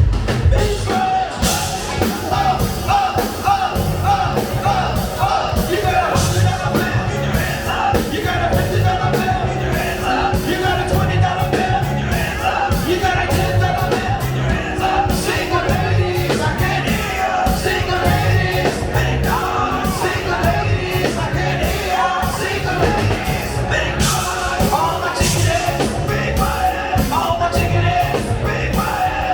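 Live funk and soul show band playing a number, with a drum kit keeping a steady beat and singing over it.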